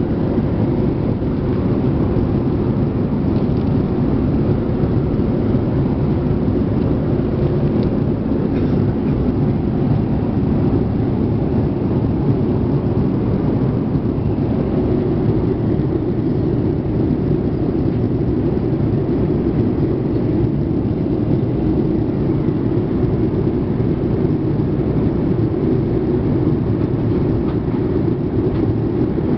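Steady low rumble of engine and airflow noise inside the cabin of a Boeing 787-8 airliner.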